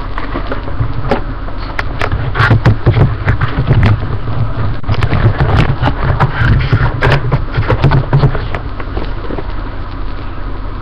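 Toy packaging being handled and opened close to the microphone: a dense run of sharp crackles and rustles over a low rumble, strongest from about two seconds in until near the end.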